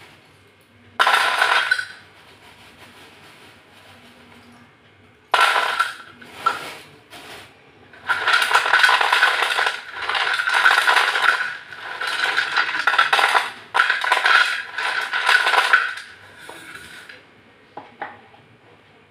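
Broken slate pencil pieces clattering and scraping against each other and the plate as hands scoop and rub them together. There is a short burst about a second in and another around five seconds, then nearly continuous clatter for about eight seconds before it stops.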